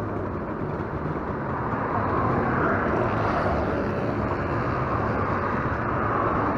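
Motorcycle engine running steadily, heard from the saddle, with road and traffic noise around it.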